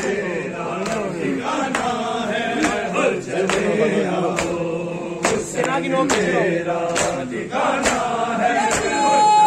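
A crowd of men chanting a Shia noha together, with the sharp slaps of matam, open hands striking bare chests, keeping a steady beat a little faster than once a second.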